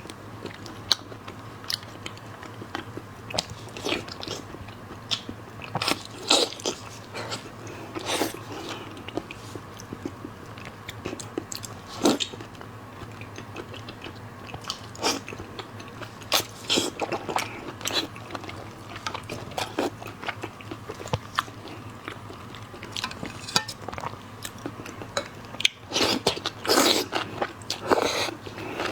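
Close-miked biting, crunching and chewing of seafood from a shrimp and shellfish platter, in irregular crunches with a denser, louder run of crunching near the end.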